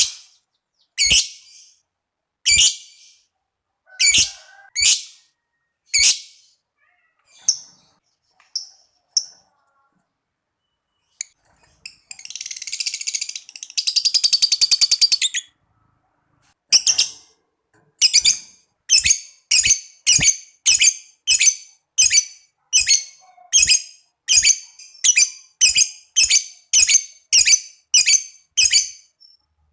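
Lovebird calling: sharp, high-pitched single chirps about once a second, then near the middle a long rapid chattering trill lasting about three seconds (the 'ngekek'), followed by a quick run of sharp chirps about two a second.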